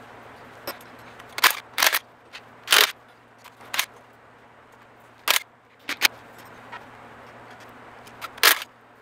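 Hand tools being handled in a workshop: a string of about eight sharp, irregularly spaced knocks and clanks, the loudest ones in the first three seconds and once more near the end.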